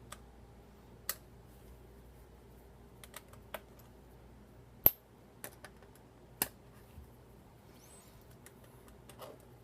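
Sparse light clicks and taps of a small Phillips screwdriver and tiny screws against a laptop's plastic base as the bottom-plate screws are taken out. The sharpest click comes about five seconds in.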